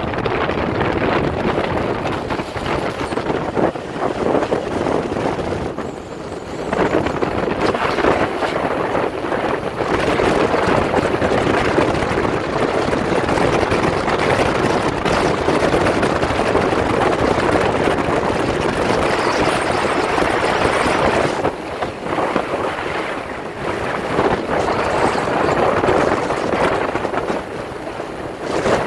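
Bass boat underway at speed on choppy water: the outboard motor's running noise blended with rushing wind on the microphone and water rushing past the hull. The loudness eases briefly a few times.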